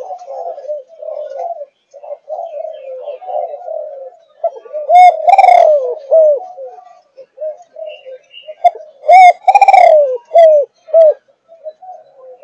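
A 5.5-month-old Malaysian-line spotted dove of the 'thúc gù' cooing strain cooing in low, rapid coos. It breaks into two loud coo phrases, about five seconds in and again about nine seconds in.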